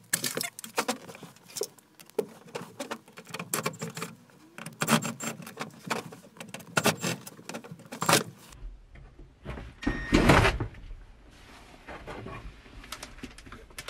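Hard plastic clicking, knocking and rattling as a truck's glove box is worked loose and pulled out of the dash, in quick irregular strokes. About two-thirds of the way through a low hum comes in under the handling, with one louder scraping rattle a little later.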